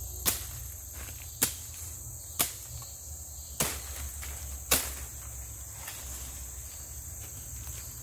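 A machete chopping into wood five times, about one sharp strike a second, stopping about five seconds in. A steady high-pitched drone of forest insects runs underneath.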